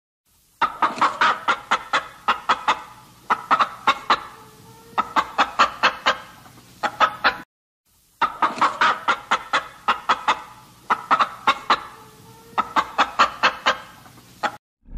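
A chicken clucking in quick runs of short, sharp clucks. The same sequence plays twice, with a brief silent gap a little after halfway.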